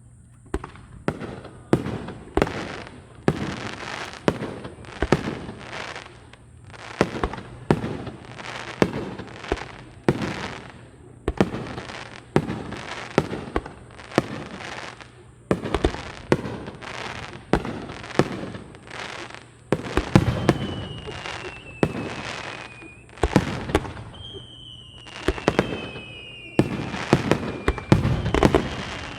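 Aerial fireworks shells bursting in rapid succession, about one or two sharp bangs a second. In the last third several falling whistles from whistling shells sound among the bangs.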